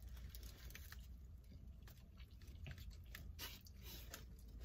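Faint chewing of food, with small scattered mouth and spoon clicks over a low steady hum.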